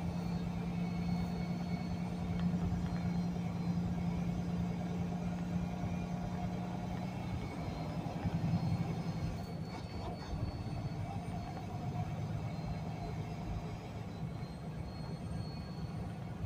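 Semi truck's diesel engine running at low speed while the truck creeps through a parking lot, heard from inside the cab as a steady low rumble; its drone changes about seven seconds in.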